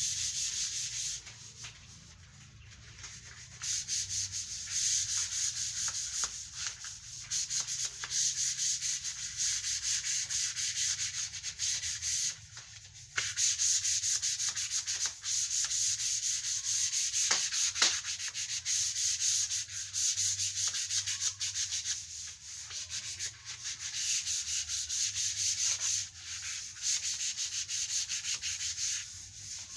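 240-grit sandpaper rubbed back and forth over wood coated with sanding sealer, a steady run of quick scratchy strokes. It pauses briefly about two seconds in and again near the middle.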